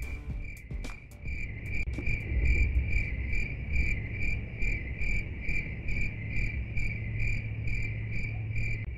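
Crickets chirping in a steady, regular pulse of two or three chirps a second, over a low rumble.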